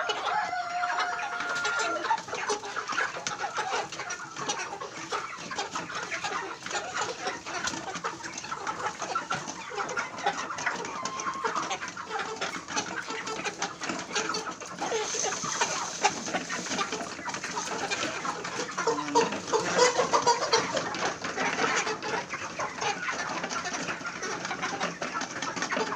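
A flock of chickens clucking and calling, many short overlapping calls at once, with a longer held call about a second in.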